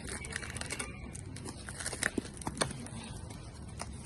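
Parcel packaging being unwrapped by hand: crinkling and tearing with scattered small clicks and snaps.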